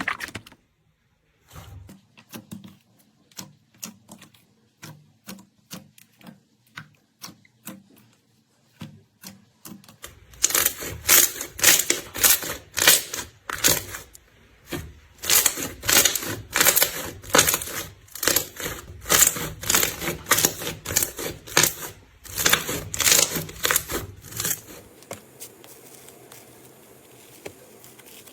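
Slime being squeezed and poked by hand, making rapid sticky clicks and pops. It is faint at first, turns much louder and denser about ten seconds in, and falls to a quiet hiss near the end.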